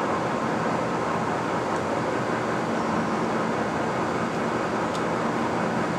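Leblond 31 x 108 engine lathe running steadily under power, its 20 HP main motor and gearing making an even mechanical hum, with the saddle power feed engaged.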